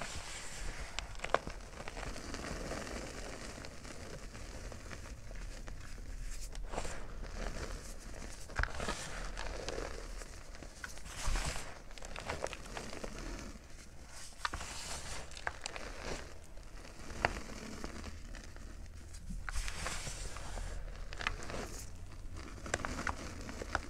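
Hands crushing, scooping and squeezing powdery crumbled gym chalk: irregular soft crunching and rustling, with a few sharp crackles as clumps break.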